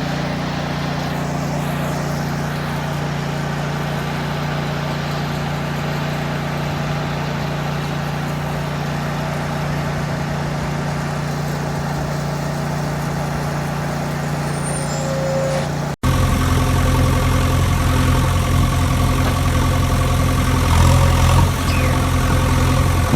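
Vehicle engine running steadily; about 16 s in it cuts abruptly to a louder, rougher engine sound.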